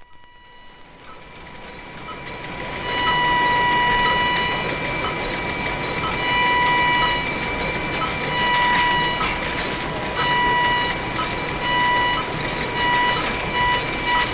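Synthesized science-fiction electronic sound effect: a buzzy pitched tone fades in over the first few seconds, then sounds in long pulses of about a second and a half with short blips at a steady pace in between. Near the end the pulses quicken into rapid beeps, like an alarm.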